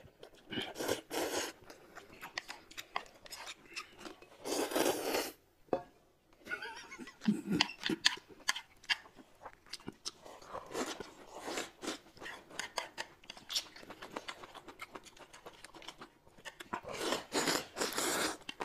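Close-miked eating sounds: chewing and crunching with many small clicks and crackles, and three louder noisy bursts lasting about a second each, near the start, in the middle and near the end.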